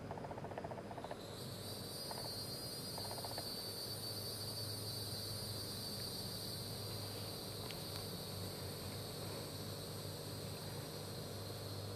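Insects calling outdoors: a steady, high-pitched trill that starts about a second in and holds. Two short buzzes come in the first few seconds, over a low steady hum.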